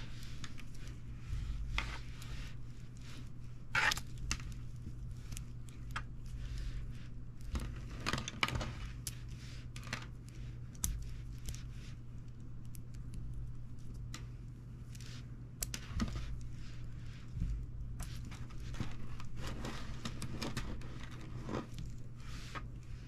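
Plastic spiral springs handled and rubbed against each other and the wooden tabletop: irregular scraping, crinkling and light clicking, loudest about four and eight seconds in, over a steady low hum.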